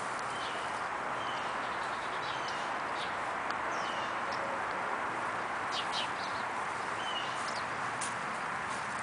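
Steady outdoor background hiss with a small bird chirping briefly every second or two, and a few soft clicks.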